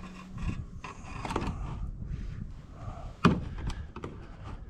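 Knocks and clatter of an automatic chicken coop door being handled and fitted against a wooden wall, with one sharp knock about three seconds in.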